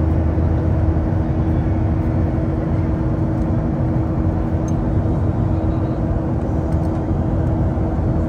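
Steady cabin noise inside a Boeing 737-700 climbing out after take-off: the even rush of its CFM56-7B jet engines and the airflow, with a steady hum underneath that eases slightly about a second in.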